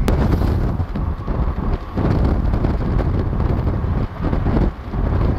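Wind buffeting the microphone of a moving car, over road and engine noise: an uneven low rumble that dips and surges every second or so. A brief click at the very start.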